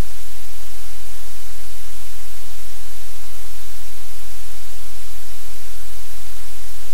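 Loud, steady hiss like white noise or static, with a low hum underneath, unchanging throughout.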